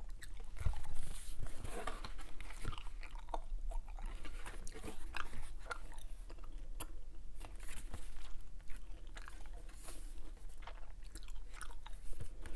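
Hubba Bubba bubble gum chewed close to the microphone: an irregular run of wet smacks and sticky clicks.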